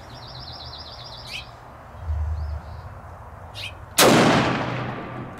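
A single shot from a Karabiner 98k bolt-action rifle in 7.92×57mm Mauser, about four seconds in, a sharp crack whose echo rings out over the following second. A bird chirps a quick run of notes near the start.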